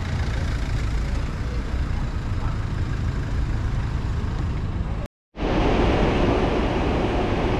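Steady low rumble of idling road-vehicle engines. The sound cuts out for a moment about five seconds in, then comes back with more hiss.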